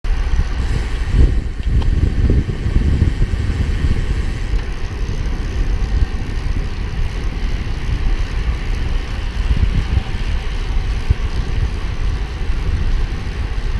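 Wind buffeting the microphone of a camera moving along with road cyclists: a loud, steady low rumble.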